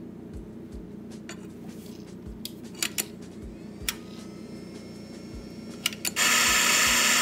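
Metal clinks and taps of an espresso portafilter being handled, then near the end an espresso grinder starts up and runs steadily, grinding coffee beans into the portafilter.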